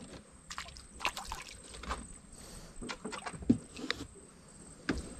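Scattered light knocks and small splashes around a small boat as a hooked small grouper is brought up to the surface on a fishing line.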